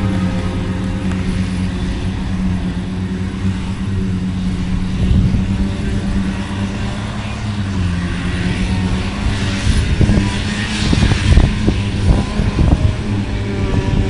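John Deere self-propelled forage harvester and the tractor running alongside, diesel engines droning steadily as they harvest grass silage. The pitch dips slightly about halfway through, and uneven rumbling knocks come in the last few seconds.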